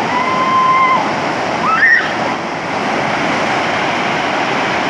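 Waterfall pouring steadily, a dense rushing of water. Two short high-pitched calls sound over it in the first two seconds, the first held for about a second, the second rising in pitch.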